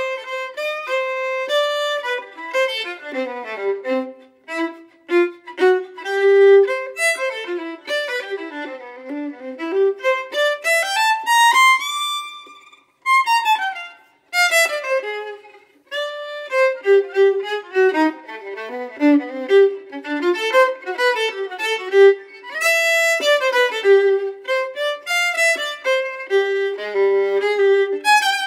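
Background music of a violin playing a quick melody with fast runs of notes. Partway through, one long upward slide in pitch, followed by a couple of brief breaks.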